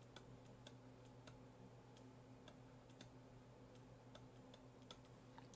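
Near silence with a scatter of faint, irregular ticks from a stylus tip tapping and sliding on a pen screen while handwriting a word.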